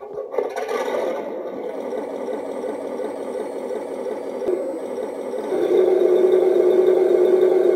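HengLong RC Sherman tank's built-in sound unit playing a simulated tank engine through its small speaker, mixed with the whir and rattle of its drive. About five and a half seconds in, the engine sound gets louder and settles into a steady hum.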